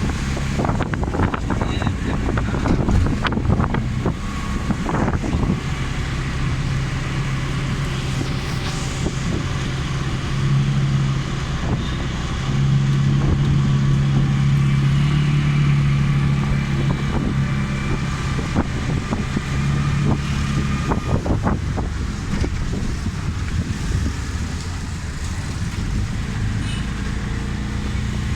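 A motor vehicle's engine running steadily with road noise, its low hum swelling louder for a few seconds midway, and a few knocks in the first seconds.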